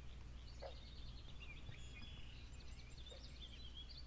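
Faint birdsong: a small bird singing rapid, chirping phrases over a low, steady outdoor hum.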